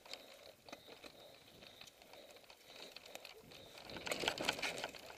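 Mountain bike rolling down a dirt forest trail: tyres crunching over dirt and the bike rattling, with scattered light ticks. It gets louder and rougher about four seconds in.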